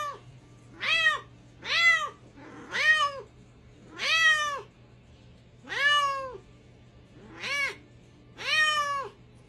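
A domestic cat meowing over and over, about seven drawn-out meows spaced a second or so apart, each rising and then falling in pitch.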